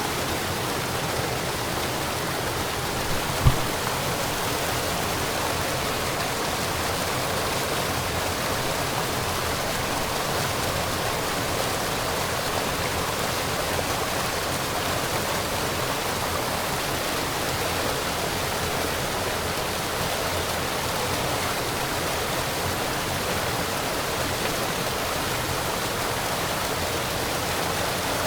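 Small waterfall rushing steadily, with a single brief thump about three and a half seconds in.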